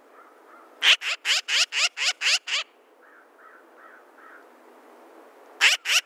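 Recorded black-billed magpie calls: a quick run of about eight harsh chattering notes about a second in, a few softer calls in the middle, then two more harsh notes near the end.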